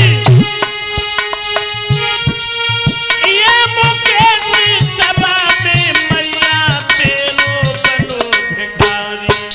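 A male singer performing a devotional sumirani (invocation) through a microphone, his voice sliding and wavering on long phrases. A steady hand-drum beat and sustained held instrumental notes accompany him.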